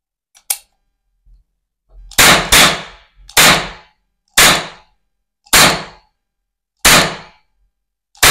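Toy revolver cap gun firing orange plastic ring caps: a small click about half a second in, then seven sharp bangs, the first two in quick succession and the rest about a second apart.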